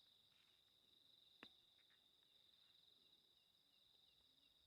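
Faint, steady trilling of night insects such as crickets, with a softer chirp repeating about twice a second, and one short click about a second and a half in.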